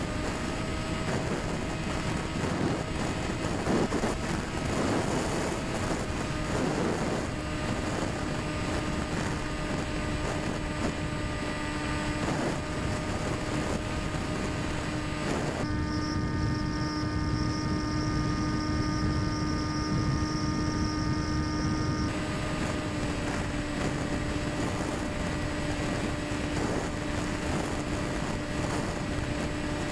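Electric motor and propeller of a Quanum Observer FPV plane droning steadily in cruise at part throttle, heard from on board with a rush of air over the airframe. The air rush dies down for about six seconds in the middle, leaving the steady motor whine clearer.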